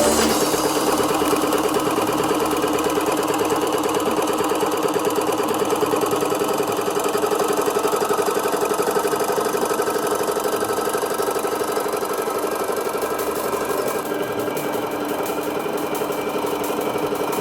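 Radio-controlled model construction machine running steadily, its diesel-style engine sound with an even, rapid knock.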